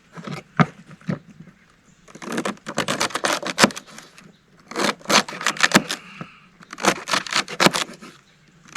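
Knife chopping celery: a few single cuts, then three runs of quick cuts, each about a second long.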